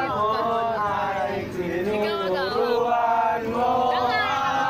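A group of people singing together, several voices holding drawn-out notes at once, a sing-along.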